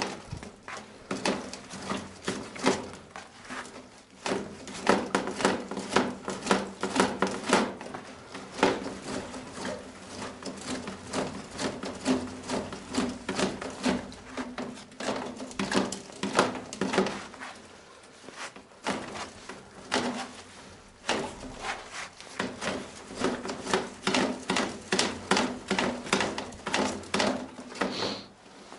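Rapid, irregular knocking and clattering from hands and tools working on a sewer pipe, in runs broken by short pauses, with a faint steady hum underneath.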